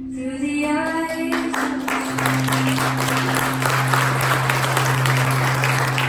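Recorded music playing for an aerial routine, opening with a rising note and then a steady low held note, with an audience clapping from about a second in.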